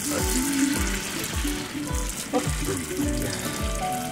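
Background music with a steady beat, over ladlefuls of hot pasta water poured into a pan of melted butter, splashing and sizzling.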